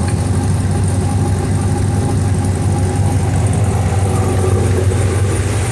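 Brand-new GM LS3 6.2-litre V8 crate engine idling steadily on its first run, breathing through long-tube headers and high-flow cats. A nice, smooth idle from a healthy-sounding engine.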